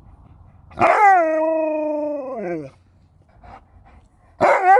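An Alaskan Malamute 'talking': a drawn-out howl-like vocal of about two seconds that breaks in high, holds steady and falls away at the end, then a second one starts near the end.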